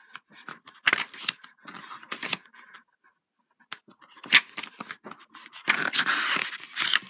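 Pages of a glossy paperback guidebook being flipped: a string of short paper rustles and swishes, a brief pause near the middle, then a longer swish of pages sliding near the end.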